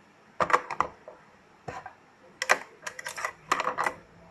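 Small hard plastic Rubik's Cube pieces clicking and tapping against each other and the work surface as they are handled, in irregular clusters of quick clicks.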